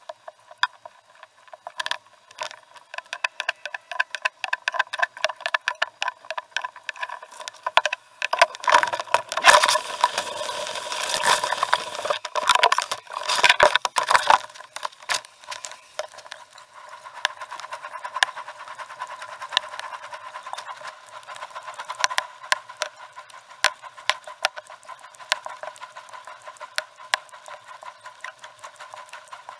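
Canoe being paddled: a steady run of small clicks and knocks with water noise, louder and rougher for several seconds in the middle.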